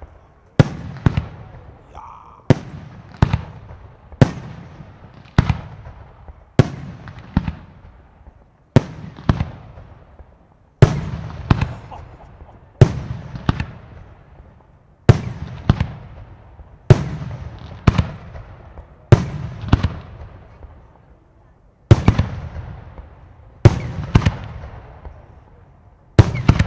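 Aerial firework shells going off one after another: sharp bangs about every second, often in close pairs, each trailing off in a long echoing rumble.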